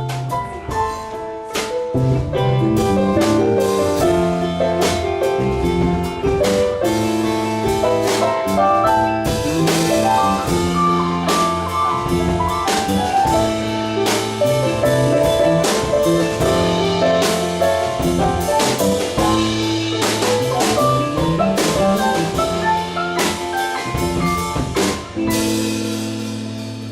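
Live band playing an instrumental passage: a drum kit hitting steadily under pitched instruments, ending in a held chord that begins to fade about 25 seconds in.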